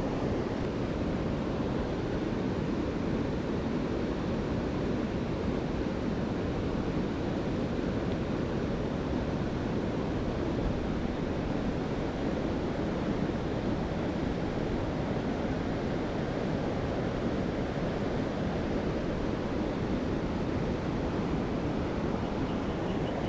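Rushing water of a mountain stream: a steady, unbroken noise.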